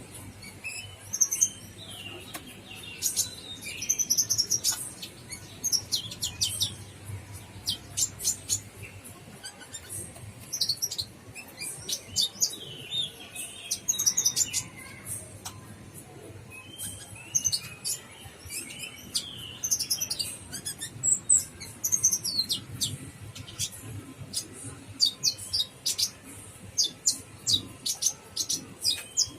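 Olive-backed sunbird calling: rapid, irregular series of short, sharp, high-pitched chirps and twitters, with some brief trills, repeated throughout.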